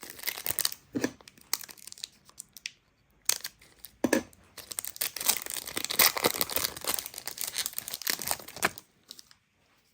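A foil Pokémon TCG booster pack being torn open and crinkled by hand, in busy spells of crackling with a short pause about three seconds in, stopping about a second before the end.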